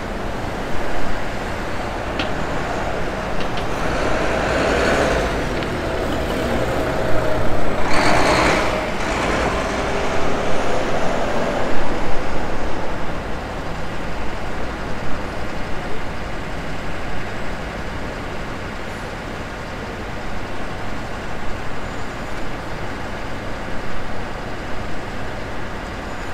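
City street traffic: road vehicles passing, with a short, loud hiss about eight seconds in.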